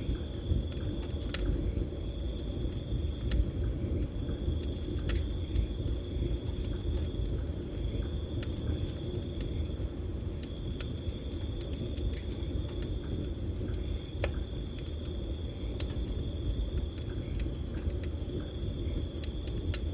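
Campfire crackling, with scattered sharp pops over a steady low rumble of the flames, while crickets trill continuously at two high pitches.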